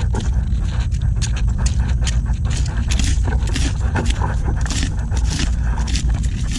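Hooked digging tool (sadat) chopping and scraping repeatedly into wet mangrove mud and roots while digging for mangrove clams, over a constant low rumble.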